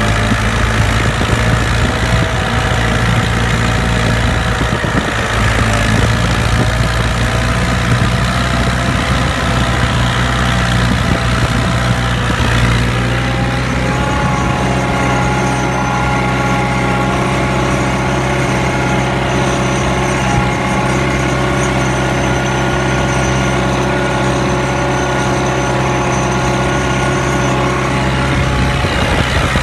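Massey Ferguson 178 tractor's four-cylinder diesel engine running steadily at full throttle under the load of a plough, with a slight shift in pitch about 13 seconds in.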